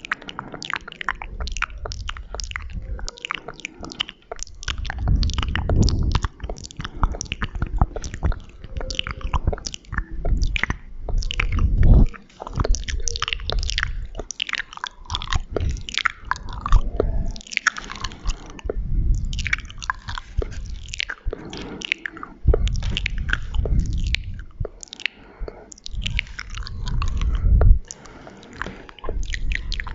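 Close-miked ASMR mouth sounds: a dense, irregular run of quick wet clicks, smacks and squelches from lips and tongue, with stretches of low rumble now and then.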